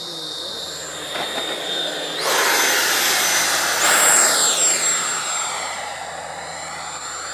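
FMS F-16 RC jet's 80 mm electric ducted fan whining in flight. Its pitch steps up sharply about two seconds in and again about four seconds in as the throttle is opened. It is loudest around the second step, then slowly fades.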